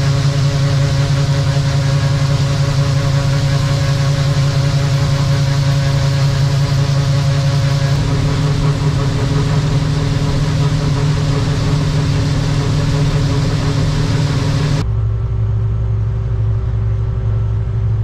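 John Deere 9670 combine running, heard from inside the cab while it unloads corn through its unloading auger into a grain trailer: a steady engine drone with several held tones that shift slightly about eight seconds in. About fifteen seconds in the sound cuts abruptly to a lower, duller engine drone.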